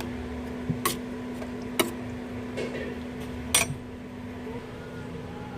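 Kitchenware clinking: three or four short, sharp clinks, spaced about a second apart, over a steady low hum.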